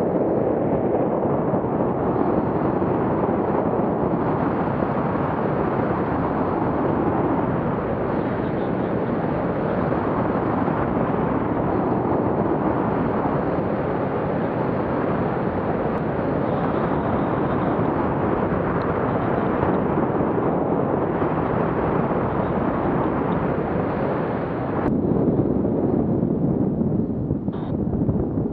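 Wind rushing over an action camera's microphone during a tandem paraglider flight, a steady loud buffeting that swells for a few seconds near the end.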